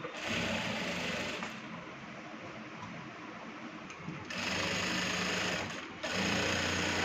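Industrial single-needle lockstitch sewing machine stitching a kameez neckline in three short runs. The first run lasts about a second and a half, then a pause of nearly three seconds, then two runs in close succession.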